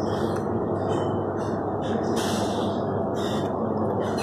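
Steady, loud background noise of a pizzeria dining room, with short hissing sounds every second or so.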